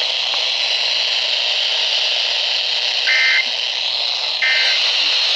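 Radio static hiss, then, about three seconds in, two short screeching data bursts about a second and a quarter apart: the Emergency Alert System SAME end-of-message code that closes the flash flood warning broadcast.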